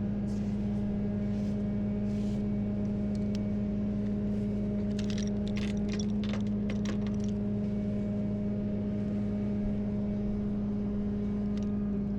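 Tow truck engine running steadily with a constant, unchanging drone, with a few faint clicks about halfway through.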